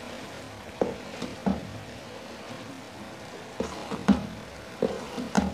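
Pan of grated carrots cooking down with sugar in the water they have released, a faint steady hiss broken by about eight short, irregular soft knocks.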